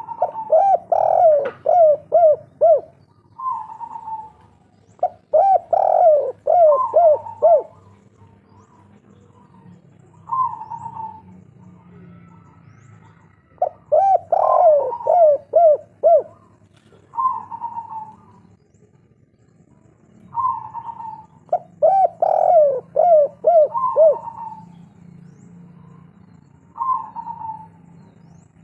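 Spotted dove (derkuku, tekukur) cooing in the 'kuk 3' song type: four full phrases about every seven or eight seconds, each a higher opening note followed by a quick run of short coos. Single short coos fall between the phrases, over a faint steady low hum.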